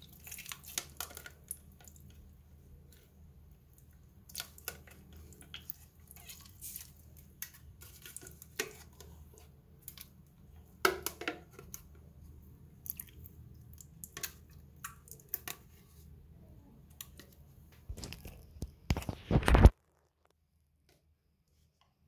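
Slime being squeezed and poked by hand, making irregular sticky clicks and pops. A louder run of squishing comes near the end, then the sound cuts off suddenly.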